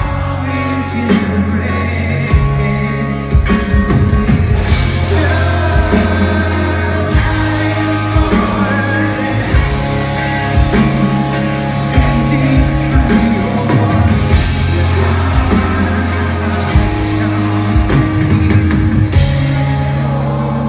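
Live rock band playing loudly: a male voice sings over strummed acoustic guitar, electric guitar, bass and drums, heard from within the audience.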